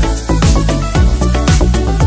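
Electronic dance music with a steady beat of about two strokes a second over a heavy bass line.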